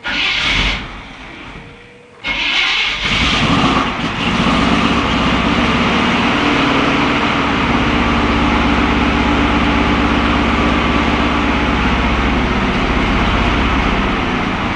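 Chevy 350 small-block V8 being started: a first burst of cranking fades, then the engine fires about two seconds in. It then runs steadily at a fast idle, around 2,000 rpm on the tach.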